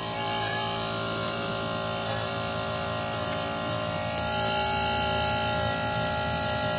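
Small electric fuel transfer pump running with a steady hum, pumping purified waste engine oil through the hose into a truck's fuel tank.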